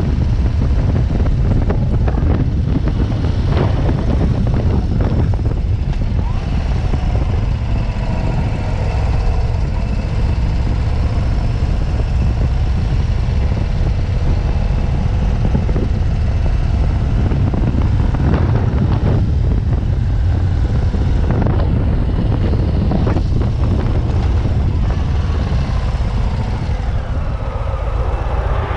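Heavy wind rumble on a GoPro's microphone on a moving Harley-Davidson motorcycle, with the bike's V-twin engine running underneath.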